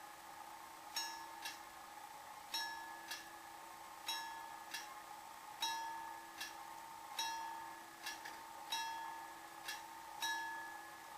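Level-crossing warning bell ringing before the barriers lower: a bell stroke about every one and a half seconds, each followed by a fainter second stroke, seven strokes in all. It signals an approaching train.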